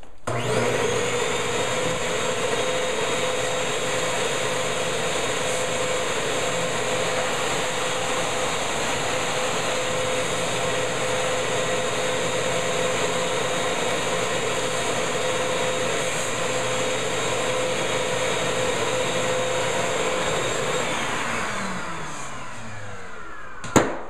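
Vacuum cleaner switched on and running steadily with a constant whine as its hose nozzle sucks debris out of an open wall outlet box. About three seconds before the end it is switched off and winds down, its pitch falling. A single sharp knock comes just before the end.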